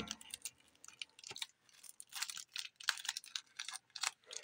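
Plastic shrink wrap on a sealed Blu-ray case crackling and crinkling in quick, irregular little clicks as it is pulled off by hand.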